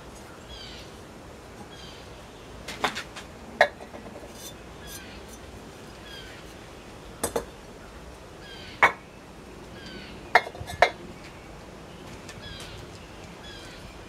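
Bisque-fired ceramic bowls clinking against one another as they are lifted out of a kiln and set down in stacks: a handful of sharp, separate clinks, two close together near the end. Faint short chirps repeat in the background.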